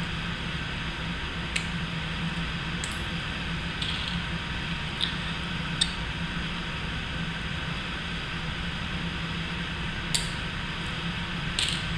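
A handful of faint, sharp clicks from snap ring pliers and steel snap rings as the retaining rings are sprung out of a linear bearing housing: several in the first half, two more near the end. A steady low hum runs underneath.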